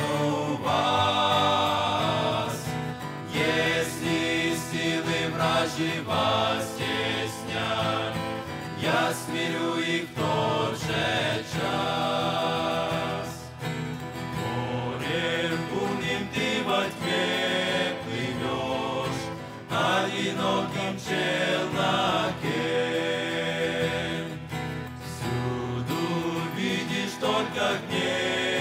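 Men's vocal group singing a Russian-language hymn together, accompanied by acoustic guitar.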